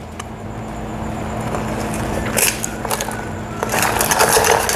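A straw in an iced drink in a plastic cup: quiet sipping at first, then the straw stirring the ice, which clicks and rattles against the cup from about halfway in, densest near the end.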